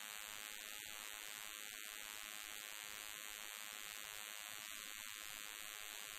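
Faint steady hiss of background noise, with no distinct event.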